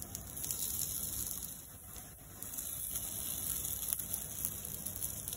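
Quinoa patties frying in shallow oil in a nonstick pan: a steady sizzle that grows a little louder about halfway through as more patties go into the oil.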